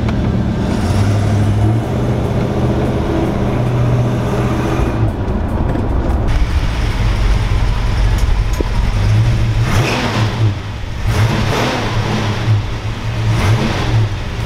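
1969 Dodge Coronet Super Bee's 383 big-block V8 running with a low, steady exhaust note, then revved a few times in the second half.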